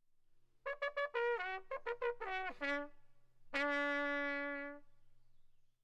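A trumpet playing a short phrase: a run of quick detached notes stepping downward, then one long held lower note.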